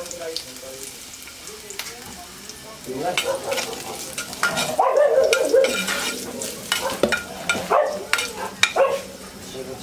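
Mustard greens sizzling as they are stir-fried in a pan, with the stirring utensil clicking and scraping against the pan many times from about three seconds in.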